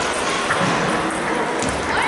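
Table tennis rally: a celluloid ball clicking off bats and the table a few times, sharp knocks over the steady background clatter of a busy sports hall.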